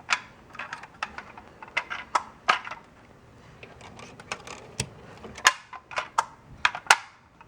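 A dozen or so irregular sharp clicks and taps from objects being handled, the two loudest in the second half.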